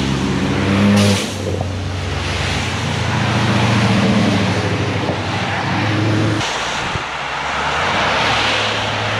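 Car engine running with road and wind noise while driving; the engine note changes abruptly about a second in and again after six seconds.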